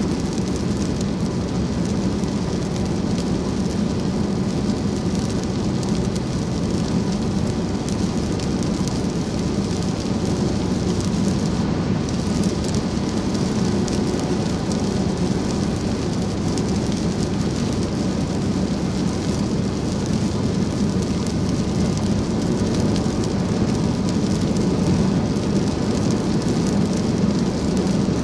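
Steady noise inside a car driving at highway speed in heavy rain: rain on the windshield and roof mixed with tyres hissing on the wet road.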